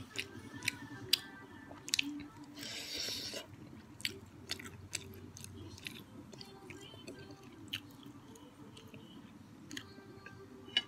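Close-miked chewing of prawn salad, with sharp clicks scattered throughout and a brief hiss about three seconds in.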